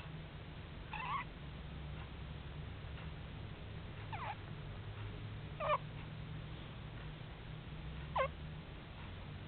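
A sleeping pet snoring: four short, squeaky whistles that slide down in pitch, over a low steady rumble.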